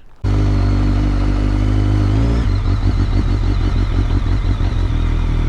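BMW motorcycle engine running, cutting in suddenly near the start. Its note changes about two and a half seconds in.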